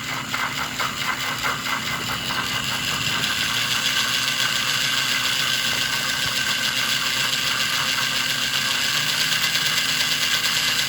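Model steam locomotive running: a steady mechanical whir with a fast, even rhythm, growing a little louder about three seconds in.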